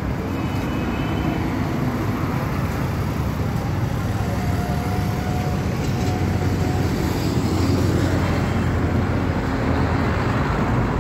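Steady motor-vehicle rumble of street traffic, a low engine hum under a general noise, growing slightly louder.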